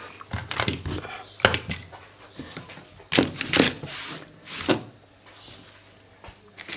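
Handling noise: several short knocks and clatters of objects being moved about on a work surface, the loudest pair about three seconds in, with a quieter stretch near the end.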